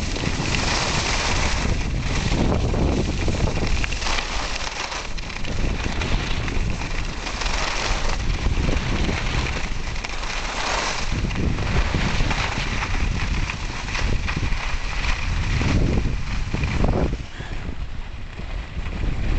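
Wind buffeting a handheld camera's microphone while skiing downhill, with the hiss and scrape of skis on packed snow swelling and fading repeatedly. It quietens somewhat near the end.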